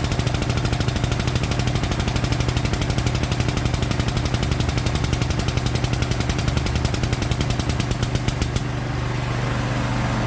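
A machine pounding in a fast, even rhythm of about five strokes a second over a steady low hum. The pounding stops about eight and a half seconds in, and the hum runs on.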